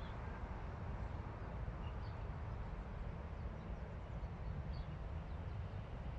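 Steady low outdoor rumble, like distant traffic, with a few faint, short high bird chirps scattered through it.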